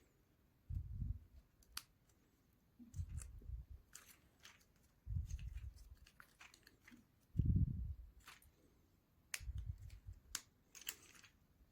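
Small basswood model-kit parts being handled and fitted together: scattered light clicks and taps, with a dull thump about every two seconds.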